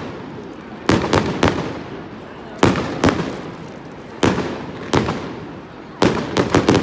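Fireworks display: aerial shells bursting with about ten sharp bangs, some single and some in quick runs of two or three, each trailing off in echo.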